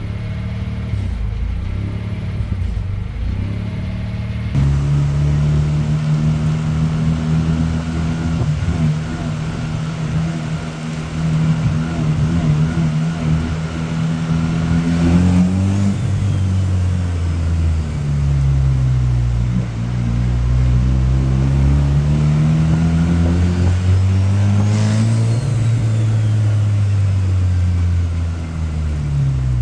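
Rotary engine idling on a freshly flashed tune, its speed unsteady. It steps up about four seconds in, then slowly rises and falls twice: the idle hunting while the ECU self-learns.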